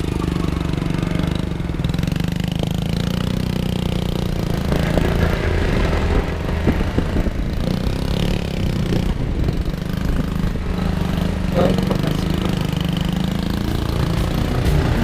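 Motorcycle engine running at a steady pace while riding on the road, with a constant low rumble.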